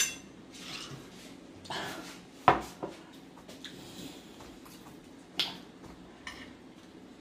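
Tableware clinking at a glass-topped dining table: a drinking glass and forks knocking and tapping against the glass and the plates, a handful of separate clicks with the loudest about two and a half seconds in.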